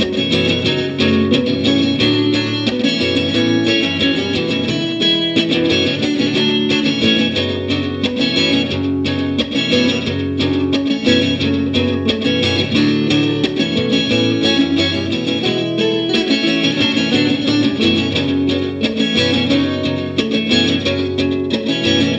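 Guitar music, plucked guitar playing steadily and continuously.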